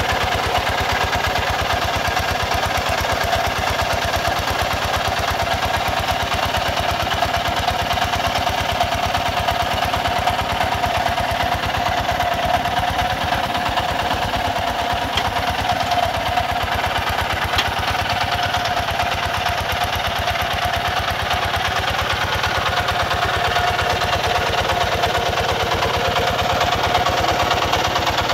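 Kubota RT140 single-cylinder diesel engine of a walk-behind tractor running steadily under load as the tractor pulls its steel cage wheels through flooded paddy mud, with an even, rapid firing beat.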